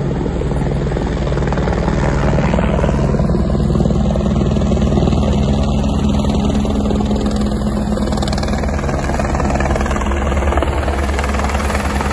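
Helicopter arriving close by: loud, steady rotor and engine noise with the even pulsing of the blades.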